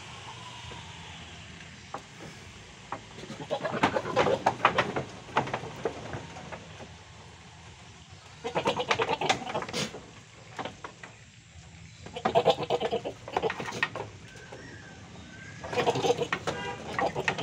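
Goats bleating in four bursts of a second or two each, with hooves knocking on the bamboo-slat floor of the pen as the buck mounts the doe near the end.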